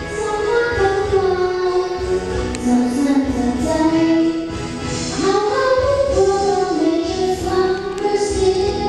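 A child's voice singing a slow melody of long, held notes that glide between pitches, over backing music for a classical Thai dance.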